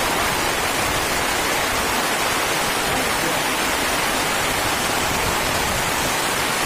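Heavy rain pouring down on a corrugated metal roof: a dense, steady hiss.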